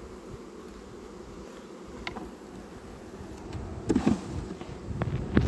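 Honeybees buzzing around an opened hive, a steady hum. Wooden knocks and scrapes from the hive frames being handled come about four seconds in and again near the end, louder than the hum.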